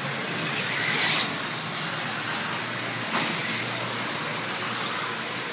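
1/10-scale electric RC buggies with 17.5 brushless motors racing on a dirt track: a steady high hiss and whine of motors, gears and tyres, swelling briefly about a second in.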